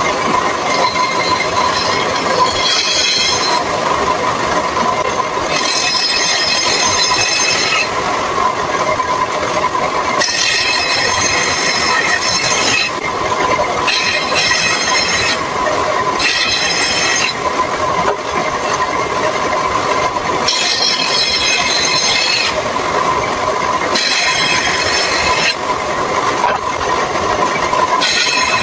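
Table saw running with a steady whine while a long wooden strip is pushed through the blade. A harsher high screech rises repeatedly, each burst lasting a second or two, as the blade bites into the wood.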